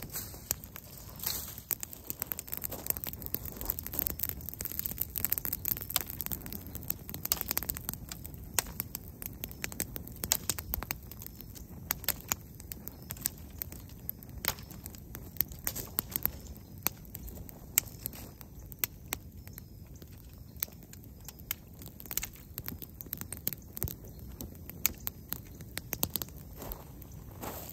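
Dry sticks and twigs snapping as they are broken by hand, with dead leaves rustling, over a small campfire crackling: irregular sharp cracks all through.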